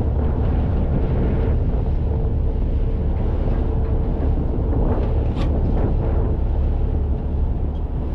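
Fishing boat's engine running with a steady low drone, with wind buffeting the microphone.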